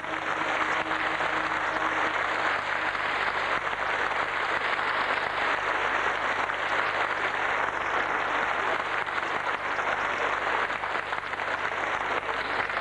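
Theatre audience applauding steadily, cutting off abruptly at the very end.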